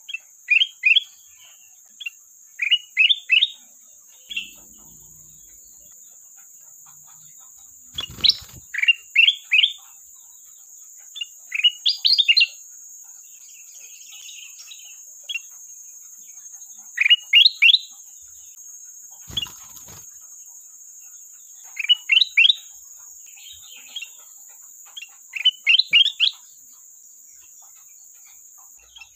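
Kutilang emas bulbul singing: short bursts of three or four quick, down-slurred whistled notes, repeated every few seconds. A steady high-pitched hiss runs underneath, and a couple of faint clicks come in between.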